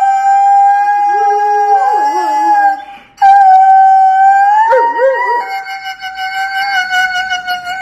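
Husky howling: two long howls held on one pitch, the first breaking off about three seconds in and the second wavering briefly near the middle before holding steady to the end. A second, lower wavering voice joins in twice under the main howl.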